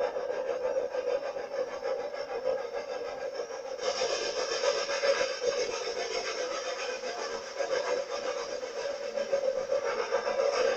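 Swiss-built 0-4-2 rack tank steam locomotive working uphill on the rack: continuous working noise from its steam and rack gear, with a steady tone underneath. It turns brighter and hissier about four seconds in, as the coach and engine pass close.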